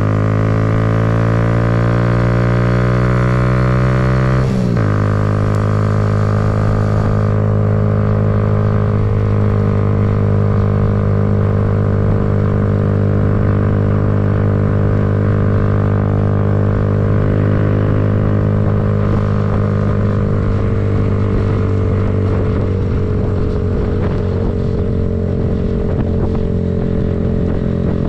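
Kawasaki Z125's 125 cc single-cylinder engine running under way: pitch rising through the first few seconds, then a brief break and drop in pitch about four and a half seconds in at a gear change, followed by a steady drone that sags slowly later on.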